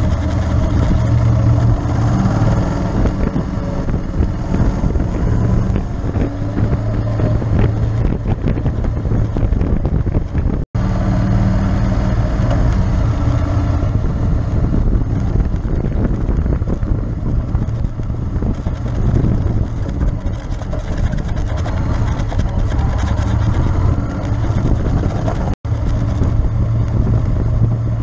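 Honda X-ADV's parallel-twin engine running steadily at cruising speed while ridden, with wind buffeting the microphone. The sound cuts out for an instant twice, about ten seconds in and near the end.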